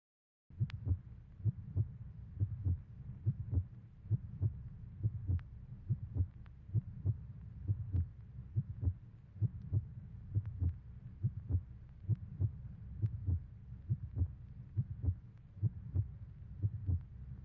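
Heartbeat sound effect: a slow, steady lub-dub beating, a little faster than one beat a second, starting about half a second in.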